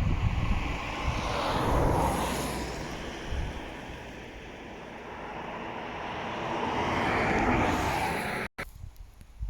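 A passing vehicle's rushing noise that swells twice, peaking about two seconds in and again near the end, with wind buffeting the microphone at the start; the sound cuts off abruptly just before the end.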